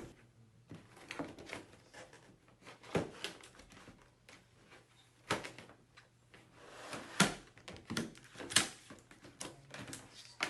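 Cardboard box panels being folded and pressed by hand: soft rustling and scraping with a handful of sharp clicks and snaps as the bottom panel is pushed down over the side flaps to lock in place.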